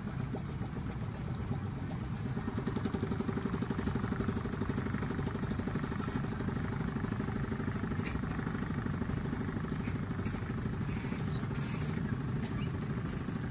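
Small single-cylinder boat engine of an outrigger bangka running steadily with a rapid, even putter.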